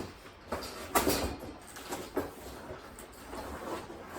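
Cardboard packaging and the metal shelf parts packed in it being handled and pulled about: a run of irregular scrapes and knocks, the loudest about a second in.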